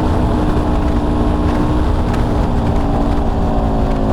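Motorcycle engine running at a steady cruise, its note holding even, with wind rumbling over a helmet-mounted microphone.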